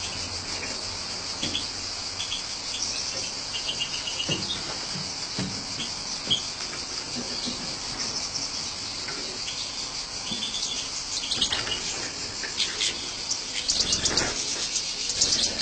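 European goldfinches chirping and twittering in an aviary, with a quicker run of chirps near the end, over a steady high buzz like insects.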